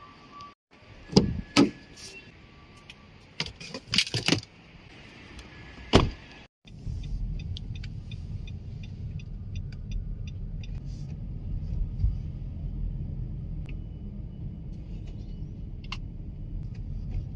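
Several sharp clicks and knocks, then, after a brief dropout, a car being driven: a steady low engine and road rumble.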